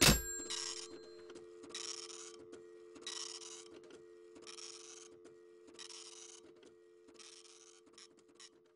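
A telephone line after the call is hung up: a click, then a steady line tone like a dial tone, with a hissing swish about once every second and a quarter. All of it fades, ending in a few faint ticks.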